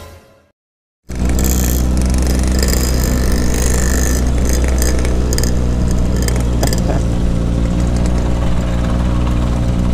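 Background music fades out into a moment of silence, then the Kawasaki Ninja ZX-25R's inline-four engine runs at steady low revs through its aftermarket racing exhaust.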